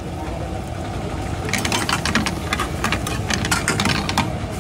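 Quick sharp metallic clicks and taps of a metal spatula against a steel frying pan, several a second, starting about a second and a half in and stopping shortly before the end. Under them runs a steady low rumble.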